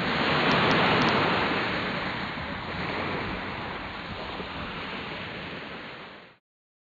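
A loud rushing noise that swells in the first second, slowly eases off and cuts off abruptly near the end.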